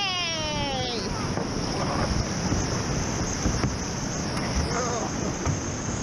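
Whitewater of a river rapid rushing steadily, with wind buffeting the helmet-mounted camera's microphone. A person's voice gives a high, falling call at the start and a brief, fainter one near five seconds in.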